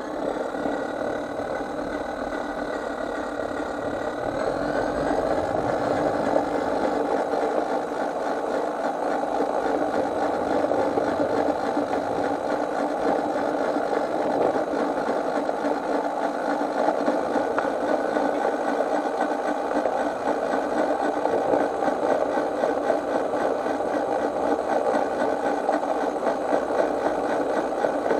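Garden-scale model train running along its track, heard from on board: a steady whine and rattle from its drive and wheels on the rails, rising a little in pitch about four seconds in.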